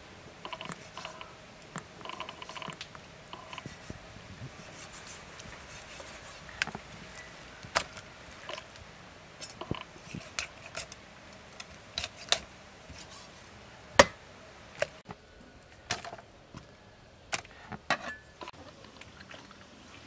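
Cleaver chopping raw duck on a thick wooden chopping block: irregular sharp knocks, about a dozen, mostly from about six seconds on, the loudest about fourteen seconds in. Softer cutting and scraping sounds fall between the strikes.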